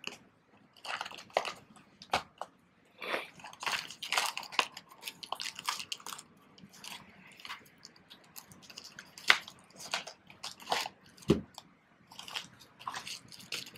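Crinkling and rustling of a plastic padded mailer and bubble-wrap pouch being handled and opened, in irregular crackly bursts, with a soft thump near the end.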